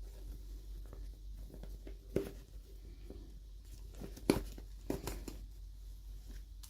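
A few light clicks and taps from hands handling small toy parts and packaging during an unboxing, the sharpest about four seconds in, over a low steady hum.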